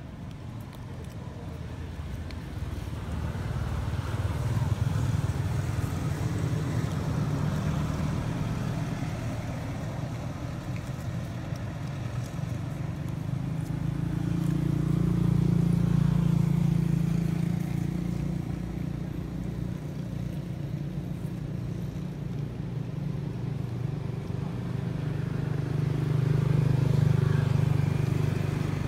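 Motor vehicles passing on a road: a low engine rumble that swells and fades three times.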